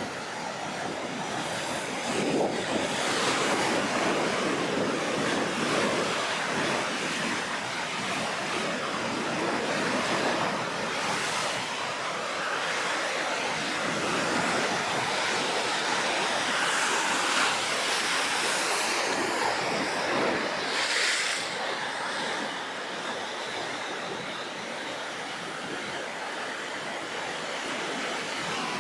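Rough, storm-stirred sea surf: waves breaking one after another in a continuous wash, swelling as each one breaks.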